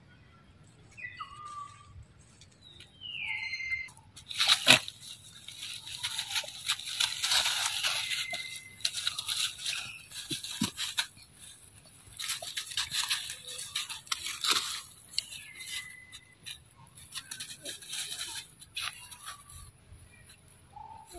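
Dry leaf litter crunching and rustling in bursts as young macaques scuffle and wrestle on it, with a sharp click about five seconds in as the loudest moment. A few short, high squeaky calls come through now and then.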